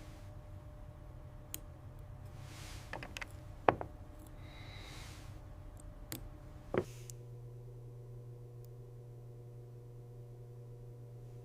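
A few light, sharp clicks of small watchmaker's tools on watch parts, the loudest about two-thirds of the way through, over a faint room hiss. A steady low hum comes in just after that last loud click.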